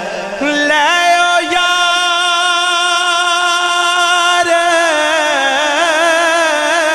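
A man singing a Punjabi devotional song into a microphone: his voice slides up, holds one long steady note for about three seconds, then breaks into a wavering run of ornaments.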